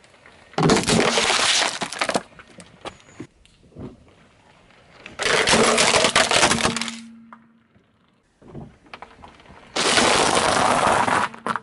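Objects crushed under a car tyre on asphalt: three separate bursts of loud crunching and crackling, each about a second and a half long, the last as a red snack packet bursts and sprays its contents.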